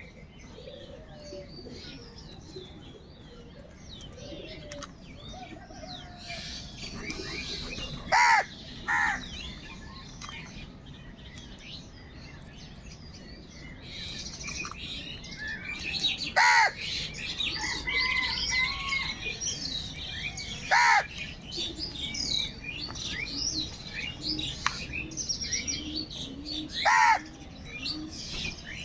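Crows cawing: five loud, harsh calls spread across the stretch, two of them close together, over a steady chorus of small birds chirping.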